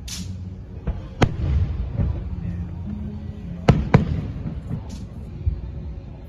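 Fireworks going off: sharp bangs at the start, about a second in, and two close together just before four seconds in, over a continuous low rumble of further bursts.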